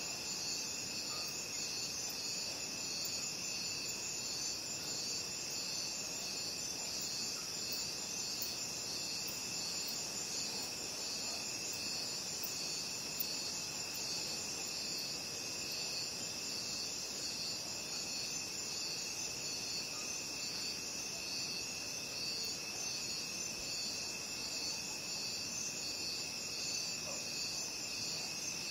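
Crickets chirping in a dense, unbroken chorus: a high, rapidly pulsing trill over a lower, steadier trill.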